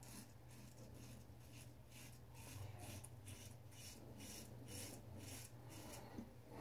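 3D-printed Genisys safety razor with a Rapira Platinum Lux blade scraping through lathered stubble in short, quick strokes, about three a second: the faint scratching of whiskers being cut.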